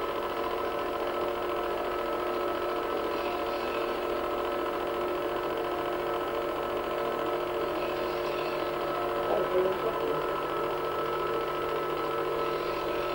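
Home-movie film projector running, a steady whirring mechanical hum.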